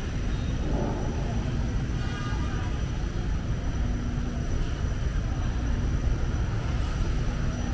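Steady low rumble of city street traffic, with brief faint voices of passers-by about two seconds in.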